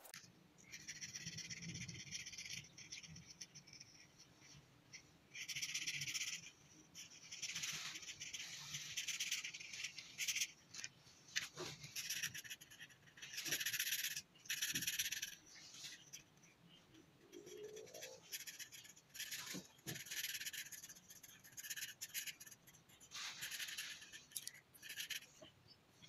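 Felt-tip marker scratching across paper in repeated back-and-forth colouring strokes, coming in short spells with small pauses between.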